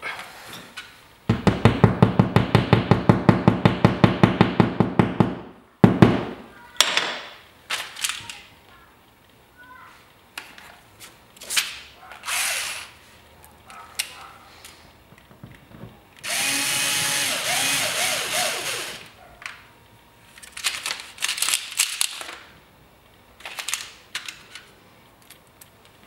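Cordless drill/driver working in drywall in two runs. The first, about a second in, lasts about four seconds with a rapid even rattle of about eight beats a second. The second, past the middle, is a steadier three-second run with its speed rising and falling. Short knocks and clicks of the tool and plastic anchors being handled come between the runs.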